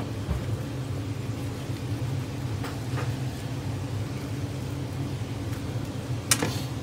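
Steady low mechanical hum, with a single sharp knock near the end.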